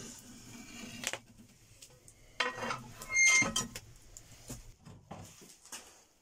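Steel rod scraping and clanking against the metal of a wood stove's firebox as it is drawn out red-hot, with a loud ringing metallic scrape about two and a half seconds in, then a few lighter clicks and knocks.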